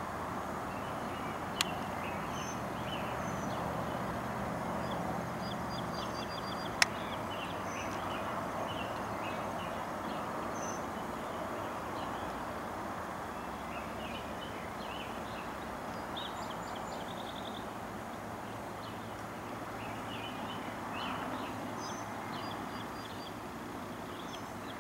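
Outdoor ambience: a steady wash of distant traffic noise with small birds chirping now and then. Two sharp clicks stand out, one about a second and a half in and another about seven seconds in.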